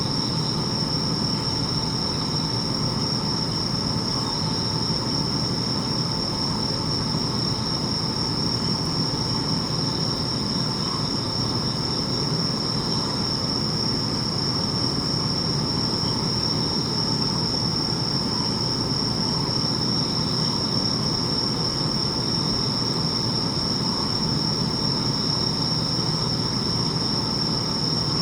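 Bell crickets (suzumushi) chirping in a continuous chorus, a steady high ringing. Under it runs an even, low background rumble.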